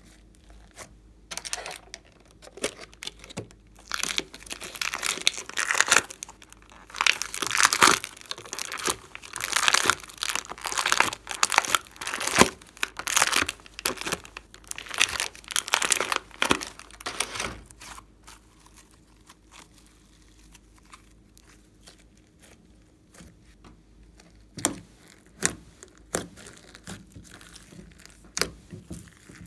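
Hands pressing, stretching and pulling glossy slime, making crackling, crinkling sounds in bursts. The sounds are loudest through the middle, then drop to a quieter stretch with scattered light clicks and pokes near the end.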